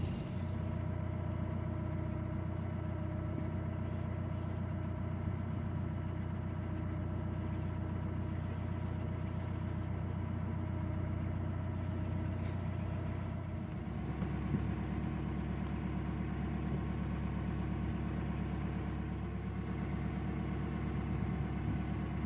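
Narrowboat's diesel engine running steadily under way. Its note changes abruptly about two-thirds of the way in, then runs on steadily.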